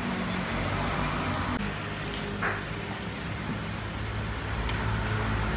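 A motor vehicle's engine runs with a steady low hum over road traffic noise. A single short, sharp sound comes about two and a half seconds in.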